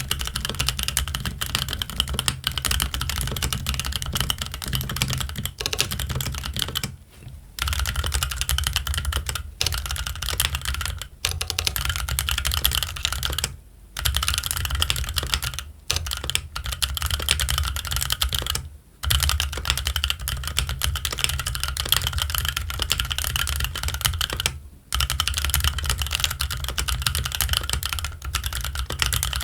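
Steady fast typing on a Keychron Q1 aluminium mechanical keyboard fitted with Gazzew Boba U4T tactile switches and Cherry-profile ABS keycaps. The dense run of key clacks stops for a few short pauses, about 7, 14, 19 and 25 seconds in.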